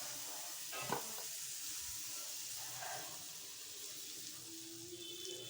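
Butter sizzling as it melts in a hot kadai, a steady hiss, with one light knock about a second in.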